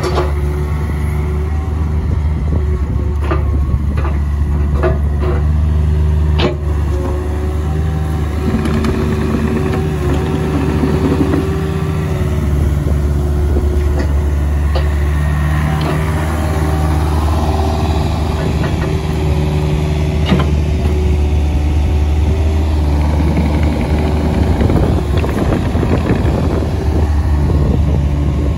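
2008 Takeuchi TB145 mini excavator's diesel engine running steadily while the arm and bucket are worked, the engine note shifting as the hydraulics take load. A few sharp metallic clicks and clanks come through, a cluster in the first several seconds and one more past the middle.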